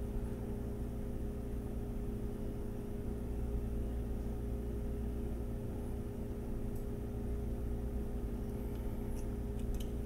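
Steady low background hum, with a few faint ticks near the end.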